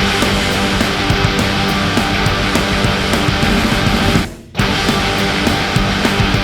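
Loud rock music with electric guitar and a steady beat. It cuts out for a moment about four seconds in, then carries on.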